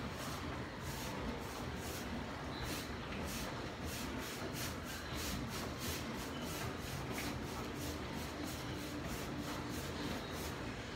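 Damp paintbrush dragged hard over the side of a painted wooden cabinet in quick, repeated scrubbing strokes, about three a second.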